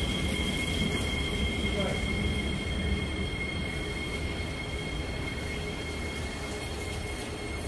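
Singapore MRT train running along the track with a steady high-pitched wheel squeal in two tones over a low rumble, slowly growing quieter.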